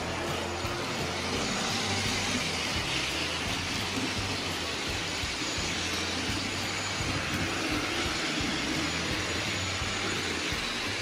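Model train running steadily along the layout's track, its motor and wheels making a continuous, even sound.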